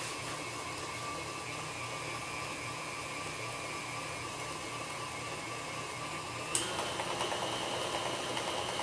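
Electric tilt-head stand mixer running steadily as it beats cream cheese filling in its steel bowl. About two-thirds of the way in it clicks and runs louder and brighter, the speed stepped up.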